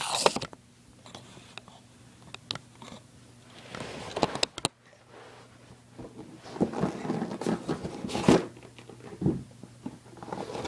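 Airsoft rifle box and its packaging being opened and handled: irregular rustling and scraping with scattered clicks and knocks, busiest and loudest near the end.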